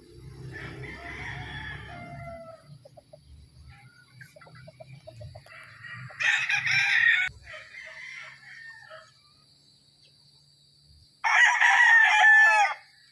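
Gamefowl roosters crowing: two loud crows, about six and eleven seconds in, the second trailing off in a falling tail, with a fainter crow near the start.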